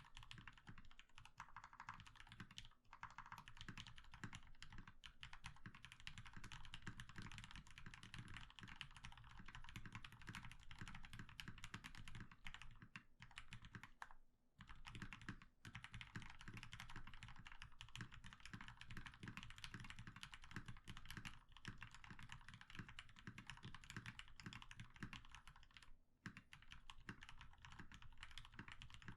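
Fast, continuous typing on a custom 60% mechanical keyboard with lubed 67.5 g Gateron Black Ink linear switches on a carbon fibre plate, in a foam- and butyl-dampened ABS case with PBT keycaps. The keystrokes run without a break except for brief pauses about 14 seconds in and about 26 seconds in.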